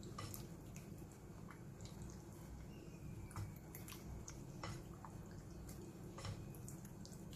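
Silicone spatula stirring raw chicken strips in a wet egg-and-cornflour marinade: faint squelching with scattered light clicks of the spatula against the bowl.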